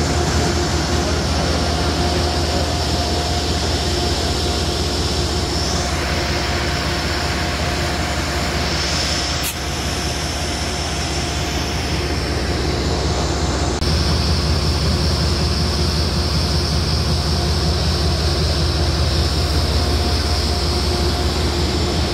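Idling diesel locomotive at a station: a steady low engine rumble with a constant whine over it.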